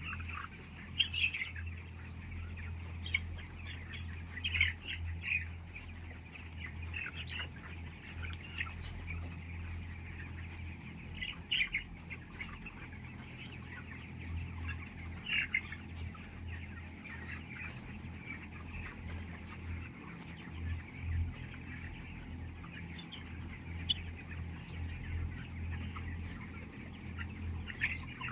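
A flock of chickens in a poultry house clucking and calling, many short overlapping calls with a few louder squawks, over a steady low hum.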